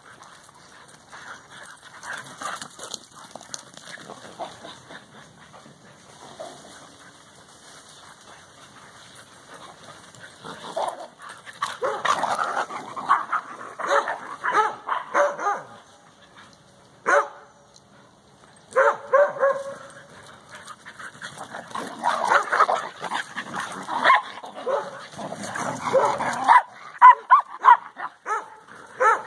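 Several dogs barking and yipping as they play and chase one another. The barking is sparse at first, busier from about eleven seconds in, and comes as short sharp barks near the end.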